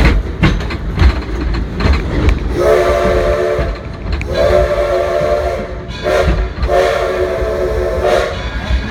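Coal-fired steam locomotive's whistle sounding four blasts over the rumble and clack of the moving train: long, long, short, long, the grade-crossing signal.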